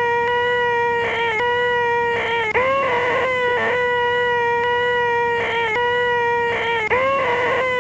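A man's voice holding the nasal, high 'eeeeehhh' drone known as 'the most annoying sound in the world', looped. The same pitch is held throughout, and each time the loop restarts the voice swoops up into the note, about every four and a half seconds.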